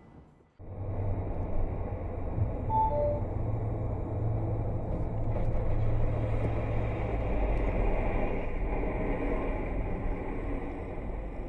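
Steady road and engine rumble of a moving car, heard from inside its cabin, starting suddenly just after the beginning. A short two-note beep sounds about three seconds in.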